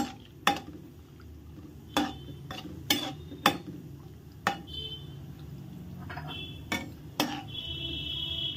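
Metal ladle stirring cashews in frying oil in a kadai, knocking and scraping against the pan every half second to a second over a low hum. A faint high whistling tone comes in near the end.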